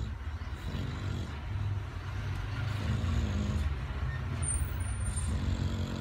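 English bulldog snoring while awake: a low, steady snore carried on its breathing, typical of the breed's short, flat-faced airway.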